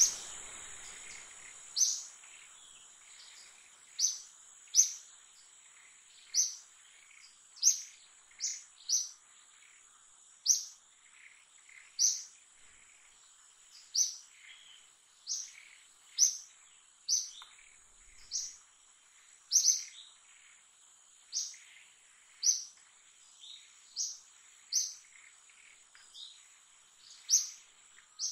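A bird calling with short, high chirps, roughly one every second or so at an uneven pace, over a steady high-pitched insect drone.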